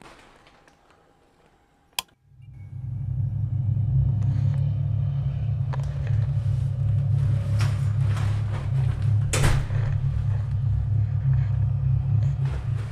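A sharp click about two seconds in, then a deep, steady low rumbling drone that swells up within a second and holds, with a few faint knocks over it.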